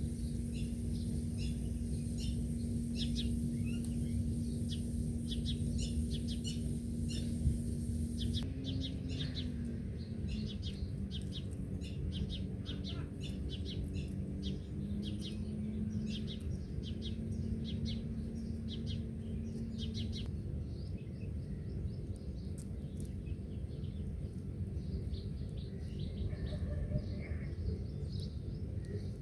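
Small wild birds chirping: many short, rapid chirps from several birds, over steady background noise with a low hum beneath that stops about twenty seconds in.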